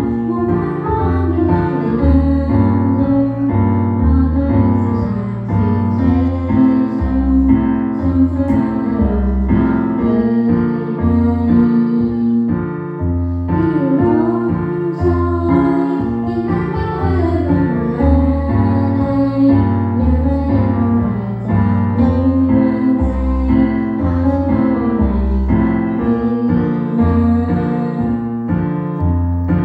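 A pop song played loud: piano or electric-piano chords over a pulsing bass line, with a female voice singing over it.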